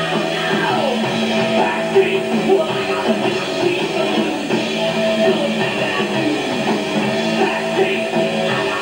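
Live rock band playing a song, with electric guitar prominent over bass and drums.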